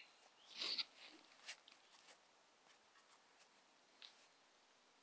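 Mostly near silence, with a short scratchy rustle a little over half a second in, then a few faint clicks: nylon webbing being handled and pulled against a foam sleeping-pad splint.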